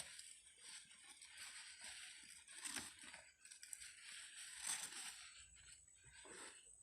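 Faint rustling and crinkling of packaging being handled, in irregular bursts with a few sharp clicks.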